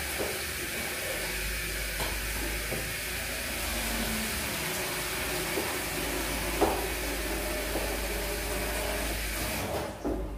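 Tap water running steadily into a steel sink while a pot is rinsed, with a few light knocks of kitchenware, the sharpest about two-thirds of the way in. The water shuts off near the end.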